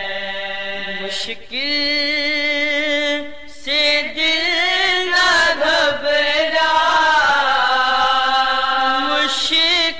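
A solo voice chanting a manqabat, a devotional Urdu poem in praise of Ali, unaccompanied. It holds long notes with a wavering pitch and pauses for breath about a second in and again around three and a half seconds in.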